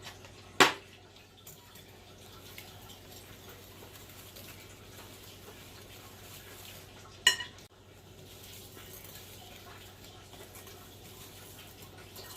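Kitchen dishes and utensils handled while mixing ingredients: two sharp clinks of a bowl or utensil, one about half a second in and one about seven seconds in, with faint handling sounds between.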